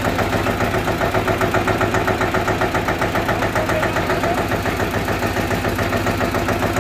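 22 HP Eicher diesel engine of a portable hydraulic borewell drilling rig running steadily, with an even rhythmic pulse.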